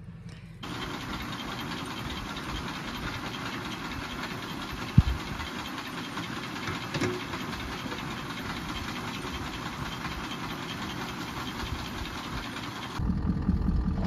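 Farm feed auger and its engine running steadily while loading feed into a truck-mounted feed box, with one sharp knock about five seconds in. Near the end a louder, deeper engine rumble takes over.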